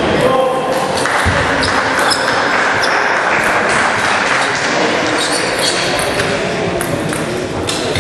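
Table tennis balls clicking irregularly on tables and bats, with a steady hubbub of voices echoing in a large sports hall.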